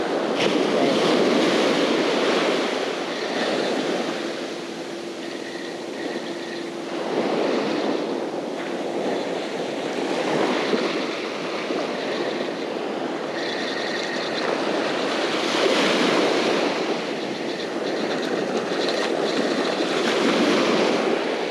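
Small ocean surf breaking and washing up the beach, swelling and fading every few seconds.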